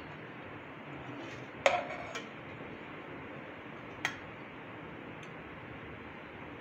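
A metal slotted spatula knocking against a metal cooking pot and a plate while rice is dished out: a few sharp clinks, the loudest a little under two seconds in, over a steady low hiss.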